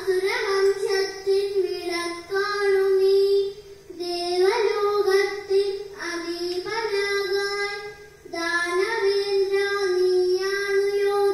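A young girl singing a kathaprasangam song solo into a microphone, in three long held phrases with short breath breaks about four and eight seconds in. The recording is played back through a television.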